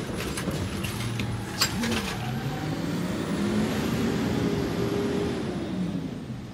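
Peterbilt 320 side-loader garbage truck with a McNeilus Autoreach body. A few sharp clanks come in the first two seconds, then the engine revs up, holds high and eases back down.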